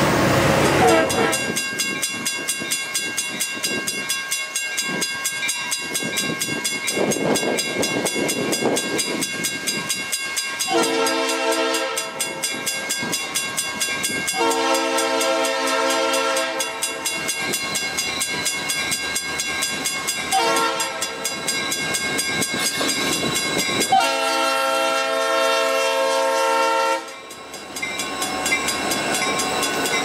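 Leslie RS-3L three-chime air horn on a Norfolk Southern EMD SD40-2 sounding the grade-crossing signal: long, long, short, long. A crossing bell rings throughout, and the passing locomotive's engine and wheels are heard near the end.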